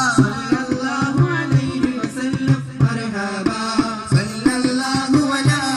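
A devotional song sung to a steady hand-drum beat, amplified through large PA loudspeakers.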